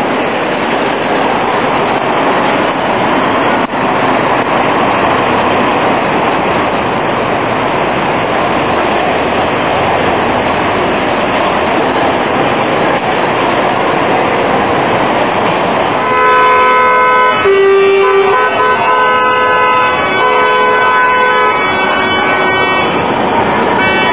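Steady noise of busy city-street traffic from buses, cars and trams. About two-thirds of the way in, a series of held tones at changing pitches comes in over it and carries on.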